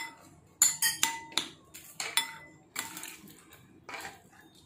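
Plastic serving spoon scooping rice out of a coated cooking pot, knocking and clinking against the pot about ten times in short ringing clicks.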